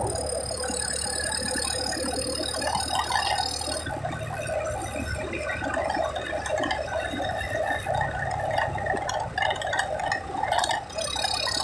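Engine and road noise from inside a moving vehicle, with a continuous rattle of loose cabin parts over a rough road surface.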